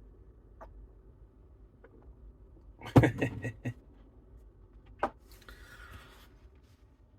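A quick run of sharp knocks and clatter about three seconds in, then a single sharp knock about two seconds later, followed by a brief soft rustle.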